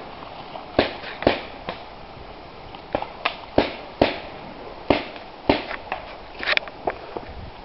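Paintball markers firing: about a dozen sharp pops at irregular spacing.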